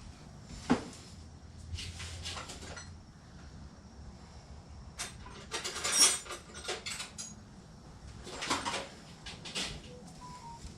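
Scattered clicks and metallic clatter of hand tools and parts being handled while working on a car engine, loudest about six seconds in.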